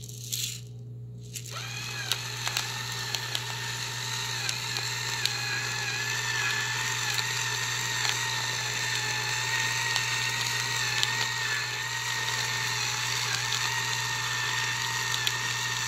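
Trudeau battery-powered gravity pepper mill's small electric motor running steadily as it grinds peppercorns, set off by tilting the mill over; it starts about a second and a half in with a whine and light ticking from the grinder.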